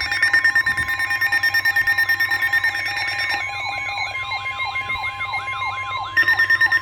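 Several emergency alert receivers sounding at once: a steady weather-radio alert tone under fast, even beeping. About halfway through, a repeating falling warble joins in, and near the end the beeping comes back louder. Together they announce a National Weather Service severe thunderstorm warning.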